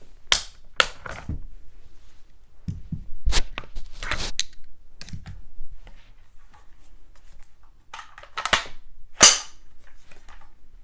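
Taurus CT-40 carbine being cleared by hand: a series of about six sharp metallic clacks and snaps as the action is worked, the loudest near the end.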